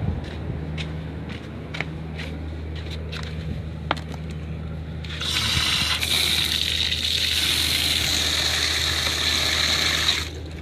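Steady low hum of a running diesel generator, with light clicks over it. About halfway in, a loud hissing rush starts, runs for about five seconds and cuts off suddenly.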